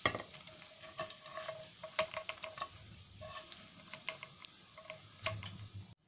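Crispy pancetta sizzling quietly in hot oil in a frying pan on low heat, with scattered sharp clicks of a plastic slotted spatula against the nonstick pan as the pieces are scooped out.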